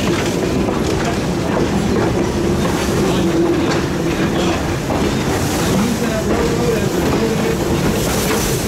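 Wooden heritage passenger coaches rolling past close by, wheels clicking over the rail joints, with a faint steady wheel squeal that comes and goes.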